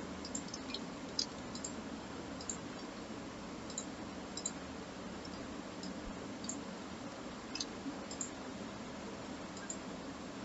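Scattered faint clicks of a computer mouse and keyboard, about a dozen at irregular intervals, over a steady low hum of room noise.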